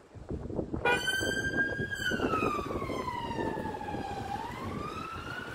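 Police car siren switching on about a second in and sounding a slow wail, its pitch sliding down and then climbing again near the end.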